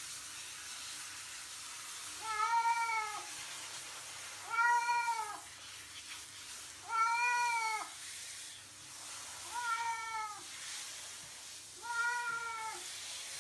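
A cat meowing five times, each meow about a second long and rising then falling in pitch, over the steady hiss of a handheld shower spraying water on it.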